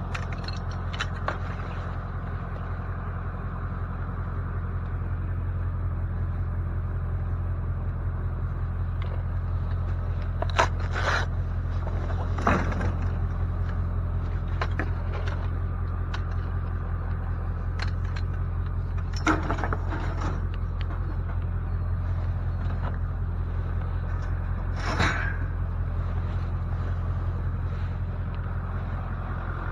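A vehicle being driven, heard from inside: a steady low engine and road drone, with a few short knocks and rattles at intervals.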